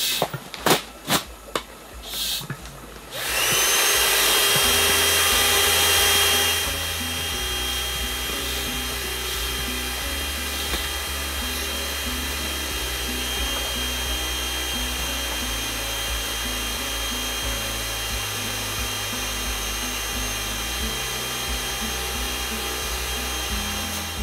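Electric air pump running with a steady whine as it inflates an air mattress, starting up with a brief rising pitch about three seconds in after some rustling of bedding. From about six seconds it carries on more quietly under background music.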